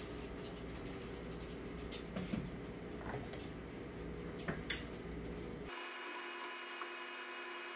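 Faint steady kitchen hum with a few light knocks and clicks of a wooden spoon stirring a metal stockpot. About six seconds in, the low hum cuts out suddenly and a faint steady whine remains.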